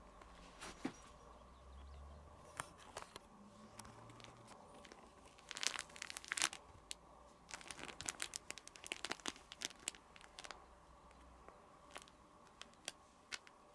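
A crinkly cat toy rustling and crackling in irregular bursts as a kitten bats at it. The bursts come thickest in the middle few seconds.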